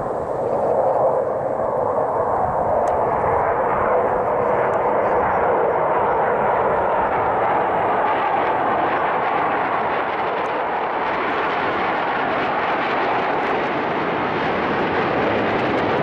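Jet engines of a formation of Black Eagles T-50B jets flying past overhead: a continuous rushing jet noise that grows brighter and hissier toward the end.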